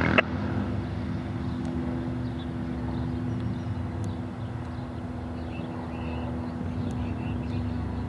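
A sharp click just after the start, typical of a handheld scanner's squelch closing as a radio transmission ends. After it comes a steady low engine drone with a faint held hum.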